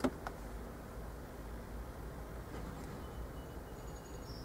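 Scissors snip once sharply through a wire's insulation at the start, with a weaker click just after. After that there is only a faint, steady low rumble.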